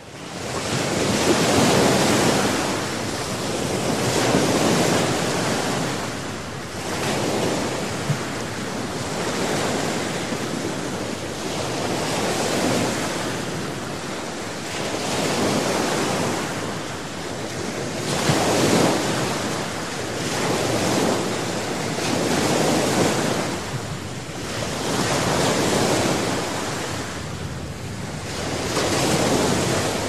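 Small waves breaking and washing up a sandy shore, the surf swelling and fading every two or three seconds; it fades in at the start.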